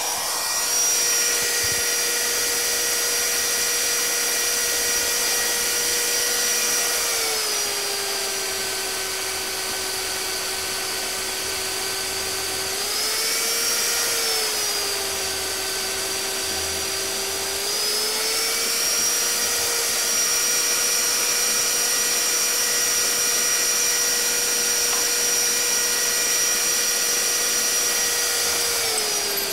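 Magnetic drill press boring an 11/16-inch hole through a steel truck frame rail: a steady electric motor whine whose pitch sags twice as the cutter bites under load, then climbs back.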